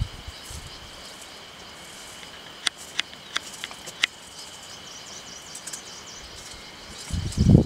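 Outdoor ambience dominated by a steady, high-pitched insect drone, with a few sharp clicks about three to four seconds in. A loud low rumble starts near the end.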